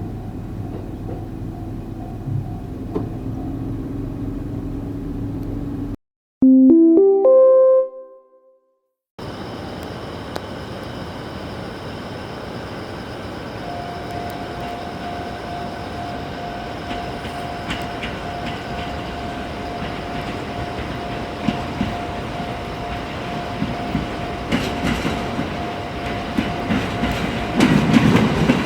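Sounds of a Yokosuka Line electric train at a level crossing: a steady running hum with a held even tone, then wheels on the rails growing louder near the end. About six seconds in, the sound cuts out for a short rising chime of a few notes.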